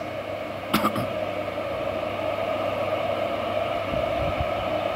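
Steady roar of a large stadium crowd, heard through a TV speaker, with one brief sharp sound about a second in.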